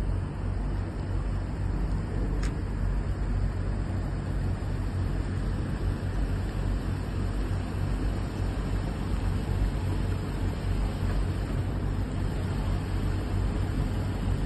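Ford Transit minibus engine running steadily at low speed as the van manoeuvres slowly, a continuous low rumble. A faint click about two and a half seconds in.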